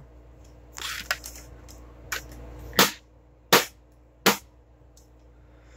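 Three sharp knocks about three quarters of a second apart, a hand smacking the cabinet of a Sencore signal generator to jolt an intermittent fault back into working (the "percussion method"). Lighter handling noises come before them, over a faint steady hum.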